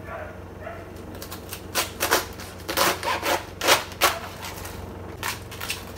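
Chef's knife slicing through a head of raw cabbage onto a wooden cutting board: about a dozen crisp, irregular chopping strikes, beginning about two seconds in and stopping just before the end.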